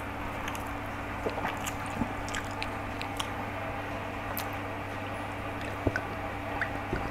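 Eating sounds: fried rice eaten by hand from a steel plate, with soft chewing and scattered small clicks, over a steady low hum. A couple of sharper knocks come near the end.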